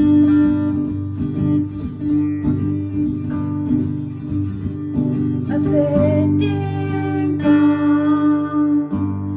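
Acoustic guitar strummed in steady chords, with a voice singing along over it for a few seconds past the middle.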